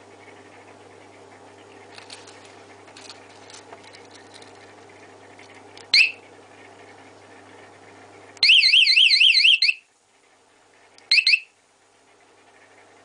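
Motorcycle vibration-sensor anti-theft alarm set off by movement. It gives a short sharp chirp, then sounds a loud, rapidly warbling siren for about a second, then gives another short chirp near the end.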